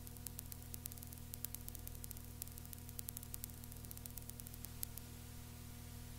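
Cassette tape hiss with a steady electrical hum and a scatter of faint crackling clicks. The clicks stop about five seconds in. This is the noise floor of an old tape transfer before the music starts.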